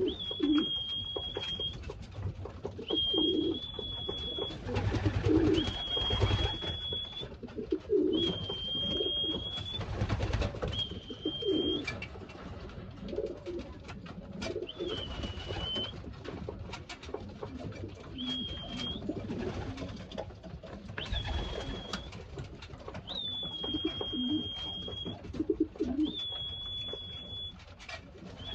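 Racing pigeons cooing in the loft. A thin, steady high tone about a second long repeats every couple of seconds, with a few soft low thumps.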